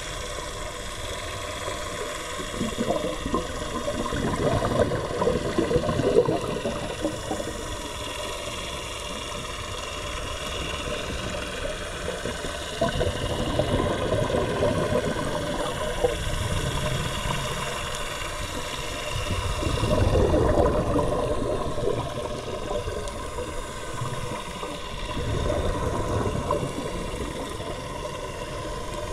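Scuba divers' regulators venting exhaled air, heard underwater: four rough, rumbling swells of bubbles a few seconds long, spaced roughly six to eight seconds apart, over a steady underwater hum with faint steady tones.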